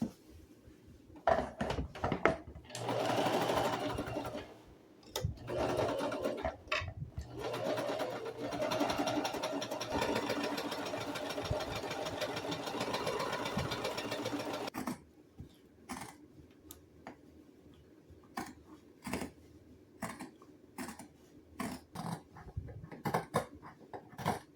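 A small electric motor running in several runs over about twelve seconds, a steady buzz with a fast rapid pattern and short pauses between runs, stopping about two-thirds of the way through. Scattered light clicks and taps from handling materials follow.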